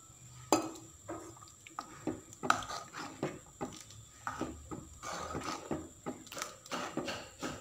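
Steel ladle stirring thick pea masala gravy in a clay pot, with irregular scrapes and light knocks of the ladle against the pot.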